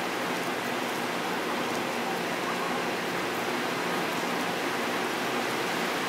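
Heavy downpour during a thunderstorm, a steady, even hiss of pouring rain.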